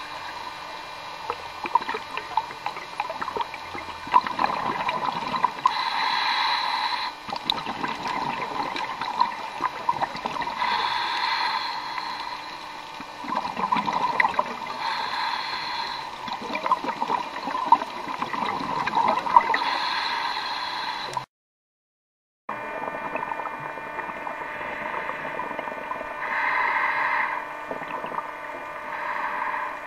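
Underwater scuba diving sounds: a diver breathing through a regulator, with a hiss every four to five seconds and a bubbly, crackling gurgle between. The sound cuts out completely for about a second, about two-thirds of the way through.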